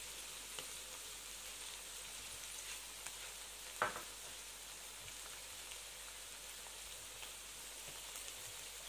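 Diced chicken and carrots sizzling gently in a metal pan on a gas stove: a faint, steady hiss. A single short knock comes about four seconds in.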